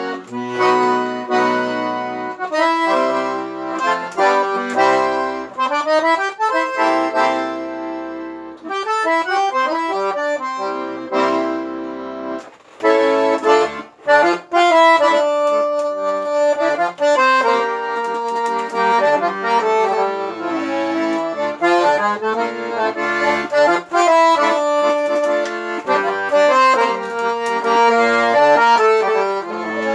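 Accordion (sanfona) playing an instrumental passage: a melody in held chords over bass notes, with a short break about twelve seconds in.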